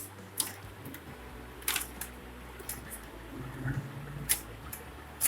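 A few separate sharp plastic clicks and knocks, a second or more apart, from hands handling the laser printer's casing while removing its packing strips.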